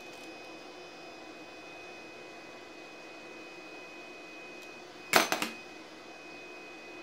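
Steady faint hum with a thin high whine, then about five seconds in a short cluster of sharp metallic clicks and rattles, the loudest sound, from a steel tape measure handled against an aluminum plate.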